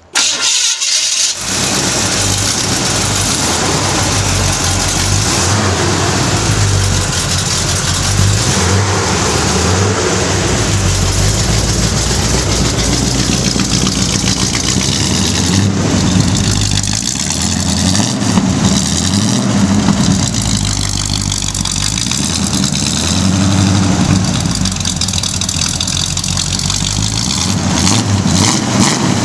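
Freshly rebuilt Chevrolet 350 small-block V8 in a 1951 GMC pickup, breathing through Cherry Bomb glasspack mufflers. It starts up at the very beginning and then runs at a loud, steady idle, its note shifting now and then.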